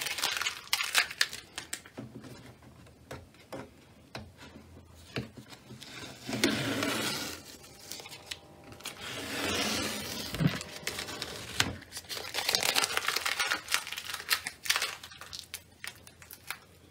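Masking tape being peeled off the borders of a watercolour painting on paper, in several separate ripping pulls, with the tape and paper rustling in between. There is a soft knock about ten seconds in.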